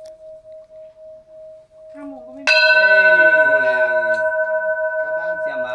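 A small hanging metal bell rings on with one steady humming tone that wavers slowly. About two and a half seconds in it is struck once and rings out with several bright tones together, then fades slowly. A man's voice talks over the ringing.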